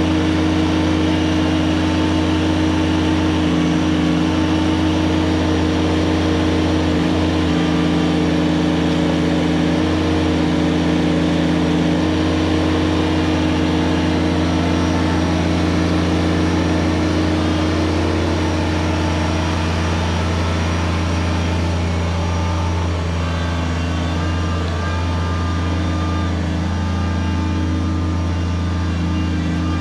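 Kubota BX23S subcompact tractor's three-cylinder diesel running as a steady, loud drone under heavy load while it drags a fallen tree. The level drops a little past the middle.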